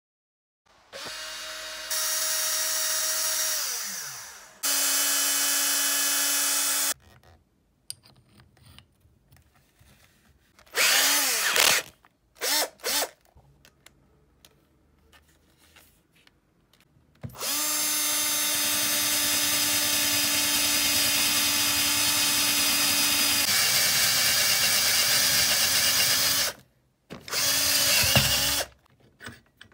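Makita 6270D 12 V cordless drill's motor and gearbox running in a series of trigger pulls: a few free runs that spin up and wind down, and short blips. Then a long steady run, drilling into wood, whose sound changes partway through, and one more short burst near the end.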